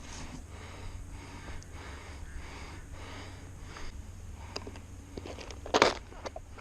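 Soft breathing and rustling close to the microphone, with one sharp, loud knock near the end.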